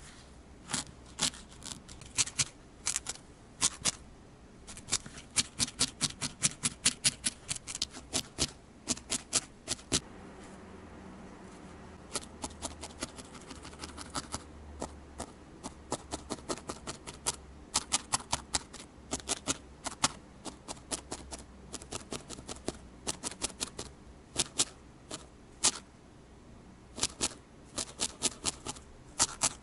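A barbed felting needle stabbing again and again through wool into a burlap-covered felting base: crisp clicks, several a second, in runs with short pauses and a gap of about two seconds a third of the way in.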